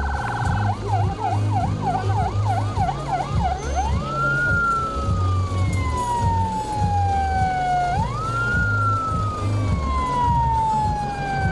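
Vehicle light-bar electronic siren. A brief steady horn-like tone gives way to about three seconds of fast warbling yelp, about three sweeps a second. It then runs two long wails, each rising quickly and falling slowly, and stops at the end.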